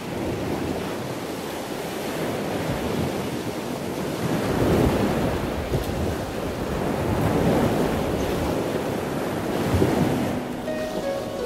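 Ocean surf breaking on a sandy beach, a steady wash of water that swells louder with each wave, about every two to three seconds.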